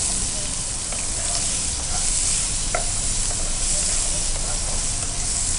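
Freshly added chopped onion frying in ghee with a tempering of mustard seeds, chana dal, peanuts and chillies in a wok, sizzling steadily as it is stirred with a ladle, with a few faint ladle ticks.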